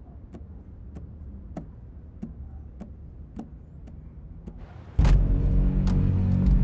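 Soundtrack of a crime drama: sharp ticks at about one and a half a second over a low rumble, then loud music comes in suddenly with a hit about five seconds in.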